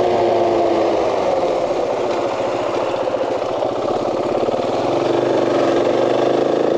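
KTM 500 dual-sport motorcycle's single-cylinder engine running steadily while riding, a little louder near the end.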